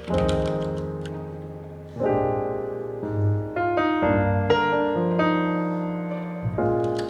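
Background music: slow piano chords, a new chord struck every second or two.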